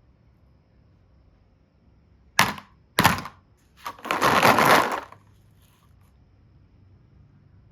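Two sharp cracks about half a second apart, then a louder crackling that lasts about a second: something brittle snapping and breaking.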